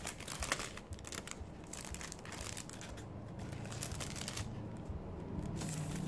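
Clear cellophane sticker sleeve crinkling as hands pull it open, in irregular bursts: busy in the first second or so, briefly again before the middle, and a longer rustle near the end as the sticker sheet comes out.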